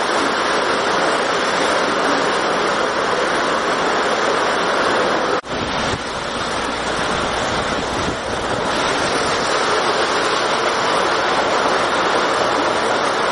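Heavy storm rain pouring on a corrugated steel roof, a loud steady hiss. It cuts out for an instant about five seconds in, comes back a little softer, and then builds again.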